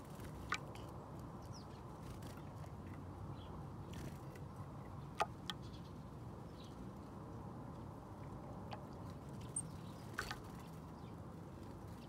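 Small garden songbirds giving a handful of short, sharp chirps at irregular intervals over a faint, steady low background rumble.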